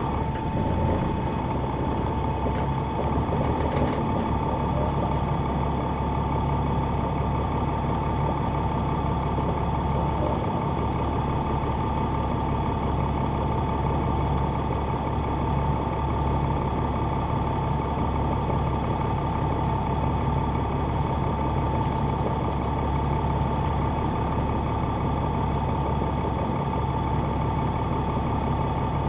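Inside the rear of a 2004 Neoplan AN459 articulated diesel transit bus: its Caterpillar C9 engine running steadily, a low drone with a steady high-pitched whine over it.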